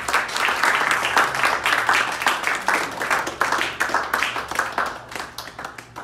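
A small group of people applauding, many hands clapping at once, dying down near the end.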